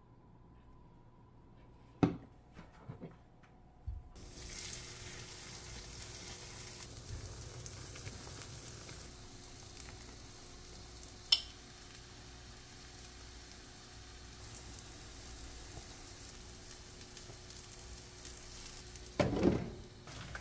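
Shredded cabbage pancake batter sizzling steadily in oil in a frying pan, starting about four seconds in after a few clicks and a knock. A short clatter near the end.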